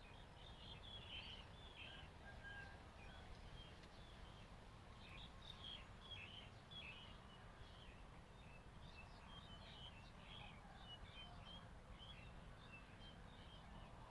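Faint chirping of small birds: many short, high calls scattered throughout over a low, steady outdoor rumble.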